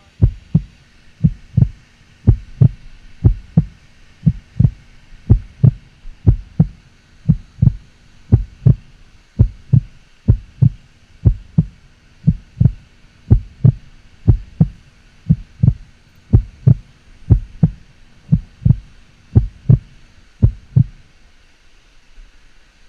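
Even run of dull low thuds, about one and a half a second, stopping shortly before the end: footfalls of the person carrying the camera while walking the trail, coming through the body as thumps on the microphone.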